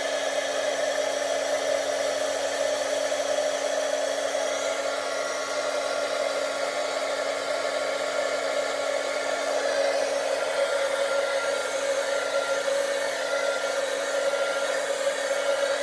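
Heat gun running steadily, blowing hot air over wet acrylic pour paint: a constant hum with a steady low tone underneath.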